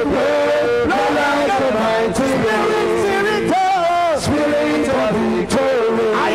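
A man singing a slow worship song into a microphone, holding long wavering notes over instrumental accompaniment.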